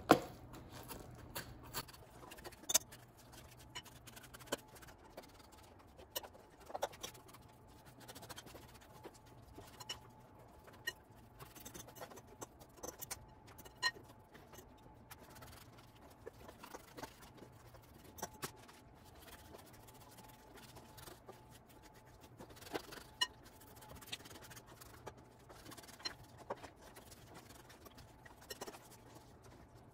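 Metal fork scraping the flesh of a baked spaghetti squash into strands, with frequent light clicks and taps as it catches the squash shell and the glass bowl.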